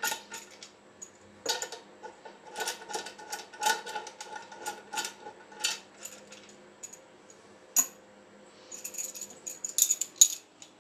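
Steel bolts on a pool pump housing being spun out by hand: a run of light metallic clicks and rattles, then a single sharp metal clink about eight seconds in and loose bolts jingling together near the end.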